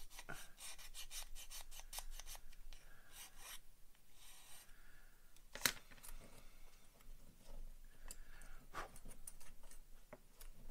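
Metal needle file rasping on a plastic kit part in quick repeated strokes for the first few seconds. A single sharp tap follows a little past halfway, the loudest sound, then a few light clicks of small tools and parts being handled on the mat.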